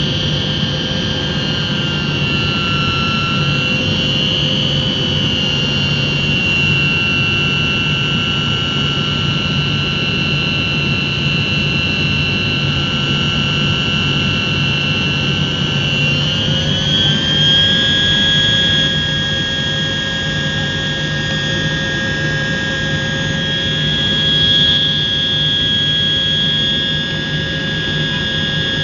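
Tu-154 airliner's rear-mounted jet engines heard from inside the cabin: a steady rumble with a high whine. About sixteen seconds in, the whine rises in pitch and settles higher as the engines spool up.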